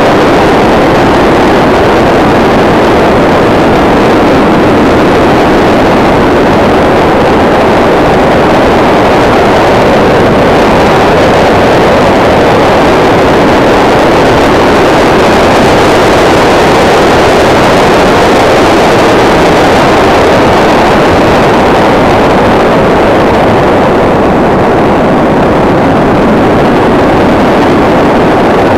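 Steady, loud rushing drone of an RC model plane in flight, heard from a camera mounted on the plane: airflow together with its brushless electric motor and folding propeller. The upper part of the sound eases slightly near the end.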